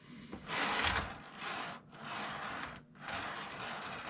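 Model train running on the track: a steady mechanical rattle and whir that drops out briefly twice.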